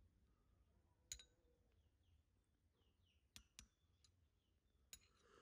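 Metal spoon clinking against a ceramic porridge bowl while stirring: a few light, separate clinks, one about a second in, a pair around three and a half seconds and one near five seconds, with faint short high chirps in between.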